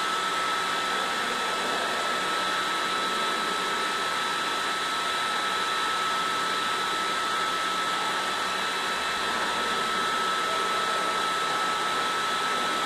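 Steady whooshing noise of a running fan, with a thin high steady whistle over it.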